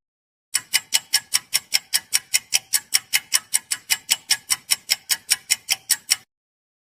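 Clock-like ticking sound effect: sharp, evenly spaced ticks at about five a second that start about half a second in and stop abruptly near the end.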